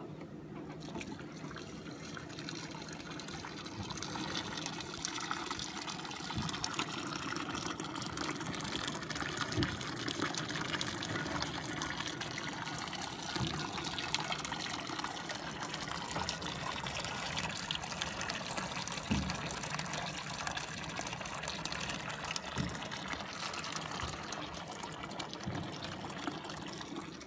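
Hot maple syrup running steadily from the evaporator's draw-off valve into a filter bag and trickling through into a stainless steel pot, with a few light knocks along the way.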